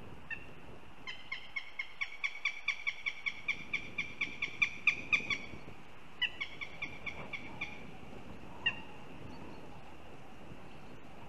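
Northern goshawk giving its rapid, harsh kek-kek-kek call: a run of about twenty notes at roughly five a second, loudest near its end, then a shorter run of about eight notes and one last single note a second later.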